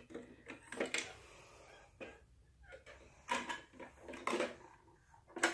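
Plastic toy garbage truck being handled: a handful of scattered light plastic knocks and rattles as its rear bin lifter and small bin are moved by hand.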